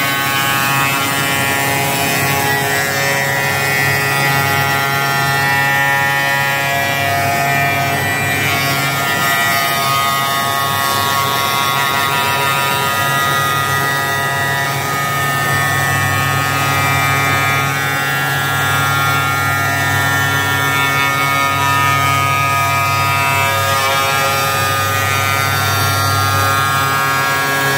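ISK-120 CNC milling machine running steadily while milling a quartz composite sink: a loud, even machine whine made of many pitches together, shifting slightly about 24 seconds in.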